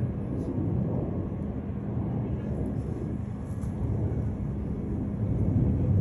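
Crane truck's engine running steadily under load as the crane hoists a rooftop AC unit: a low, even rumble with a faint hum.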